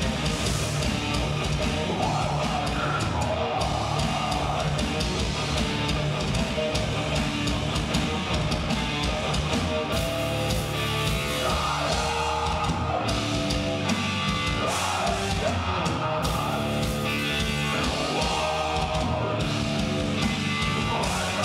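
Heavy metal band playing live: heavily distorted electric guitars over a drum kit, with harsh yelled vocals coming in over the second half.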